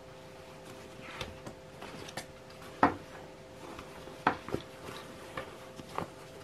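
Handling noise from a cloth vacuum dust bag being turned over in the hands: fabric rustling with a few sharp knocks and taps, the loudest about three seconds in, over a faint steady hum.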